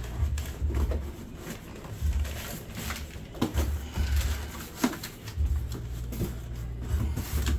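Small cardboard boxes being handled and set down inside a large cardboard shipping box: irregular scraping and rustling of cardboard with dull low thumps.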